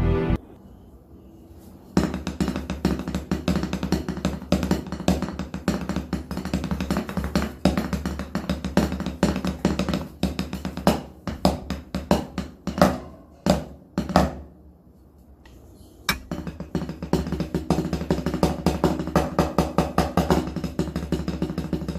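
Fast drumming with sticks: dense runs of sharp strokes and rolls. They start about two seconds in, break off for about a second and a half two-thirds of the way through, then start again.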